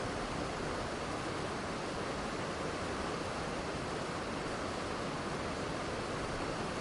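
Waterfall rushing, a steady even noise with no breaks or changes.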